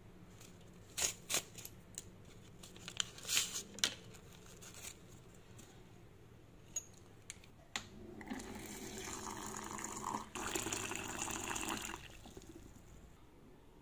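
Hot water streaming from an electric hot water dispenser's spout into a ceramic mug with a tea bag, filling it for about four seconds with a short break halfway. Before that, a few short clicks and crinkles as the tea bag and its sachet are handled.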